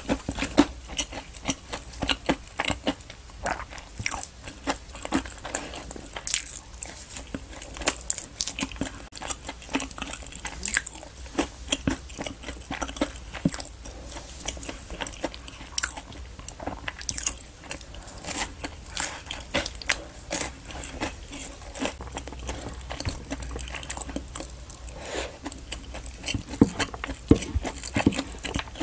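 Close-miked eating sounds: a person chewing food, with many quick, irregular clicks and smacks from the mouth.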